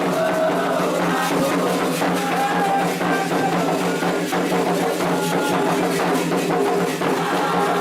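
Candomblé ritual music: atabaque hand drums beating a steady rhythm, with a pitched melody line over them.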